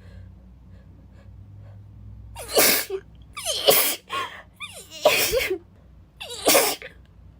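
A woman sneezing four times in quick succession, about a second apart, beginning about two and a half seconds in, with short gasping in-breaths between the sneezes.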